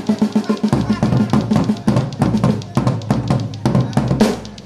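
Drums playing a fast, steady beat with bass-drum and snare strokes, several to the second.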